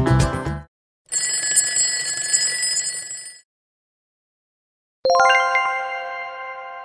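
The quiz's background music cuts off, then a ringing bell sound effect lasts about two seconds as the countdown timer runs out at zero. About five seconds in, a single struck chime rings and slowly fades, marking the answer reveal.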